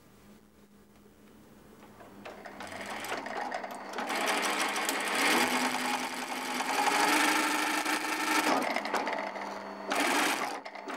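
Electric leather sewing machine stitching a leather panel, running steadily. It comes in about two seconds in and stops shortly before the end.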